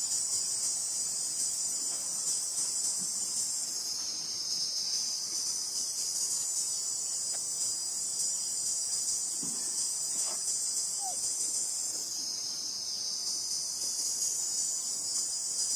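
Dense, continuous high-pitched chorus of insects such as crickets or cicadas, easing slightly twice for about a second each time.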